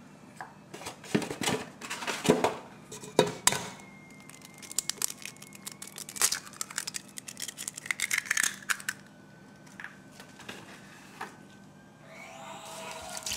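Kitchen work: clinks, knocks and rustling of utensils, containers and packaging. Near the end a liquid starts pouring steadily: milk going into the pot with the garlic powder and egg, for soaking the eggplant.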